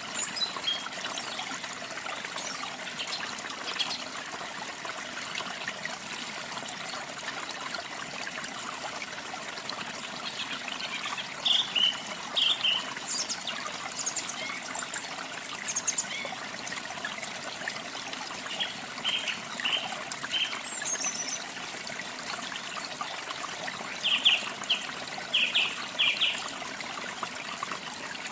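Running water trickling steadily, with small birds chirping over it in short clusters of quick notes, loudest in a group near the end.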